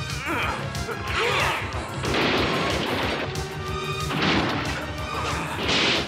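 Cartoon sound effects of a metal robot being smashed: a series of loud crashes over dramatic background music.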